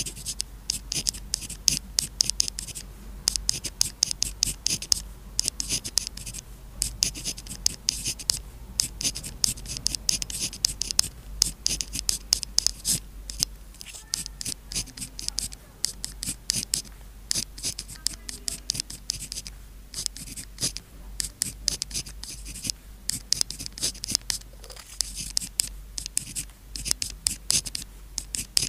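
A pen writing on paper: quick scratchy strokes that come in runs with short pauses between them.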